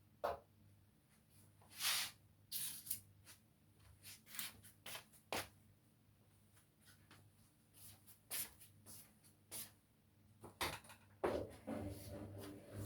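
Front-loading washing machine mid-wash: irregular soft knocks and swishes of wet laundry and water tumbling in the drum, over a low steady hum. Near the end a denser, steadier rumble with a faint motor tone sets in as the drum turns.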